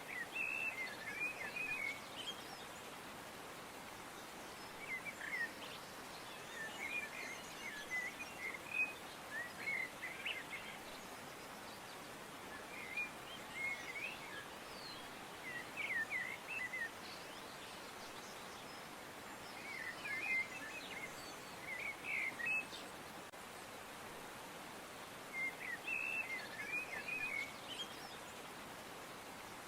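Songbirds chirping, short twittering phrases repeating every two to three seconds over a steady background hiss.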